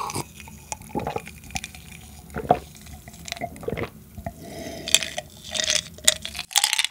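Close-miked gulping of an iced drink from a glass: repeated swallows with liquid sounds and small clicks, as the glass is drained.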